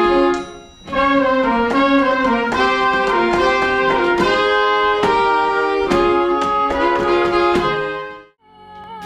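Pit orchestra playing an instrumental passage of sustained chords that change every half second or so. Near the end the music cuts off briefly, then a quieter held low note comes in.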